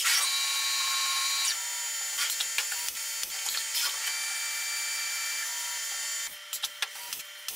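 Tormach 1100MX CNC mill's end mill cutting a CPM154 stainless steel knife blade: a steady high-pitched spindle whine over hiss and irregular clicking from the cut. About six seconds in the cutting sound drops away, leaving separate clicks and knocks.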